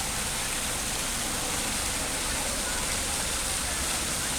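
Swann Memorial Fountain's water jets splashing into the basin: a steady rushing hiss that holds even throughout.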